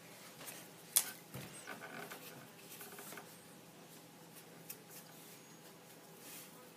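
Quiet room tone with a single sharp knock about a second in, followed by faint scuffing and rustling over the next couple of seconds, then only a faint steady hum.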